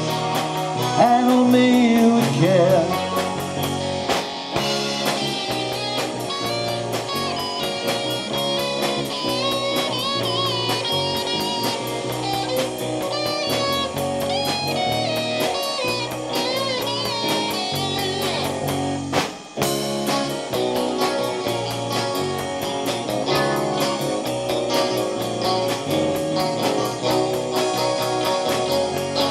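Live rock band playing an instrumental break: a lead electric guitar solo with wavering vibrato notes over drums, bass and keyboards. The sound cuts out for a split second about two-thirds through.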